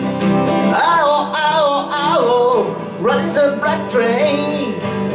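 A man singing long, wavering lines over a strummed acoustic guitar. There is a short dip in the voice about three seconds in.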